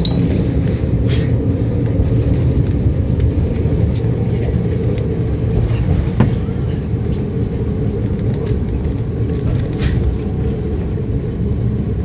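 KiHa 52 diesel railcar heard from inside the car while under way: a steady low rumble of engine and running gear, with a few short clicks and rattles and one sharp knock about six seconds in.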